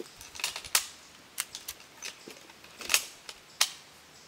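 Sharp metallic clicks of cartridges being pressed one by one into the five-round magazine of a Mosin-Nagant M44 carbine, about half a dozen at uneven intervals.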